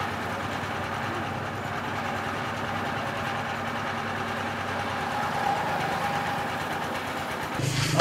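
An engine running steadily at idle. Near the end the sound cuts abruptly to something louder and different.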